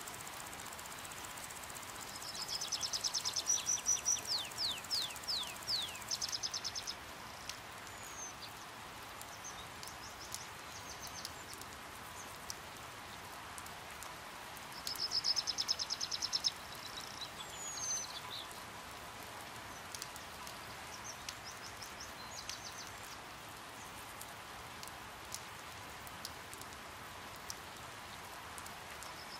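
Steady hiss of light rain with faint scattered drips, and high-pitched bird chatter twice: each time a fast run of short notes followed by a few sharp downslurred notes, about two seconds in and again around fifteen seconds in, with a few fainter calls after.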